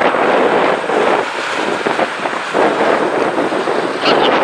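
Road traffic passing on a highway, a rushing tyre-and-engine noise that surges and eases every second or so, with wind on the microphone.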